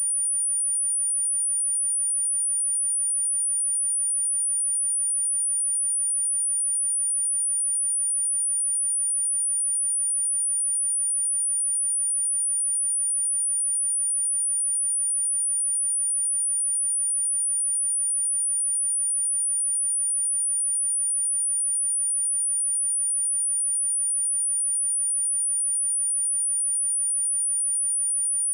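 A steady, high-pitched pure 9453 Hz sine-wave test tone, held unchanged at one level, used as a speaker test and speaker-cleaning tone.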